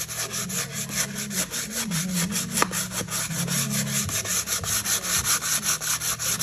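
Sandpaper disc rubbed by hand over a steel trailer rim in quick back-and-forth strokes, about six scratchy strokes a second, scuffing the old finish dull so new paint will stick.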